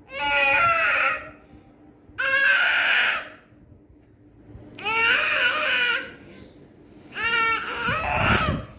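Baby letting out four loud, high-pitched shrieks, each about a second long, with short pauses between them.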